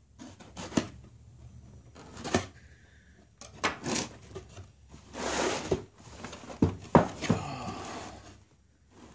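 Large cardboard kit box being handled on a wooden workbench: a series of knocks and taps, with two short sliding, scraping rushes as the box is pushed and turned, the sharpest knock about seven seconds in.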